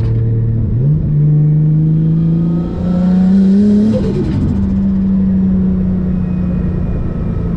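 Nissan A31 Cefiro's engine heard from inside the cabin while accelerating through the gears. The revs jump up about a second in and climb steadily, drop at a gear change about four seconds in, then hold steady at cruise.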